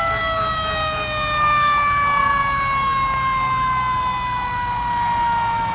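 Fire truck siren winding down, one long tone falling slowly and steadily in pitch.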